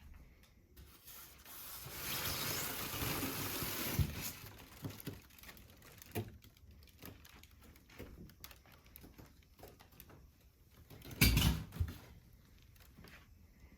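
Packaging being handled during an unboxing: a rustle lasting about two seconds, a knock, then scattered light clicks and taps, and one heavier thump near the end.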